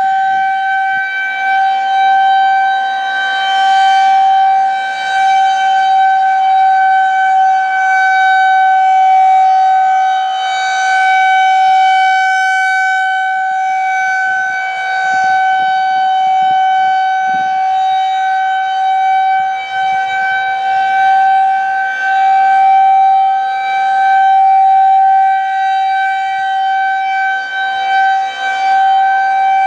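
Federal Signal 2001-130 rotating electromechanical outdoor warning siren sounding a steady Alert tone, very loud, its one held pitch swelling and fading every several seconds as the siren head turns.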